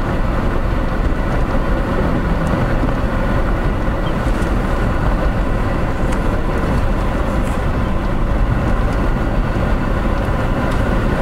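Steady road noise from a moving Toyota 4Runner: tyre rumble and engine running, even and unchanging.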